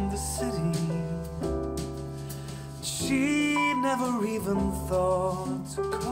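A music track played back through a pair of JBL One Series 104 desktop monitors and picked up by a microphone in the room. The track has a steady bass line under several held and gliding melodic notes.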